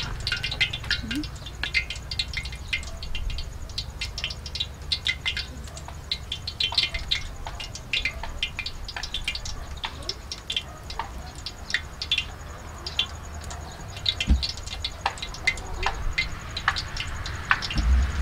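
Quick, light clicks and taps of chopsticks working a loose shredded filling on a plate and onto rounds of dough, over a steady low rumble.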